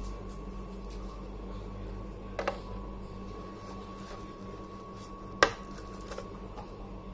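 Plastic wall charger being handled and set into its packaging tray: a few light plastic clicks and knocks, a double one about two and a half seconds in and the sharpest about five and a half seconds in, over a faint steady electrical hum.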